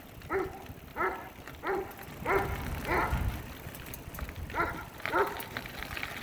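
A dog barking repeatedly: seven short barks, about one every two-thirds of a second, with a pause of over a second in the middle.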